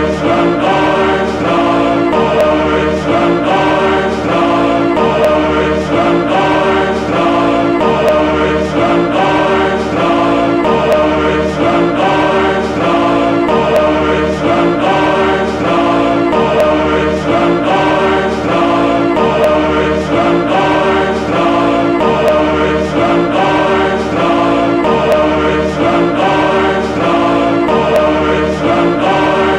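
A choir singing full chords that change in a steady rhythm over a sustained low bass, without a break.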